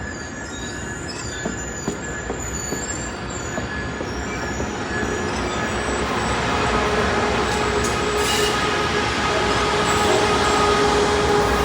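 Train running on rails with its wheels squealing in several steady, high-pitched tones over the rumble. A few sharp clicks come in the first seconds, and the whole sound grows steadily louder over the first half as the train draws near.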